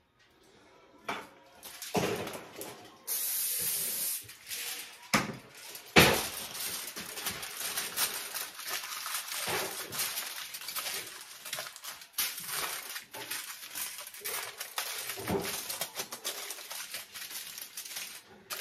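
A burst of aerosol cooking spray hissing for about a second, about three seconds in. Then, from about six seconds, aluminium foil crackling and crinkling as it is pulled and pressed down over a baking pan, starting with one sharp loud crackle.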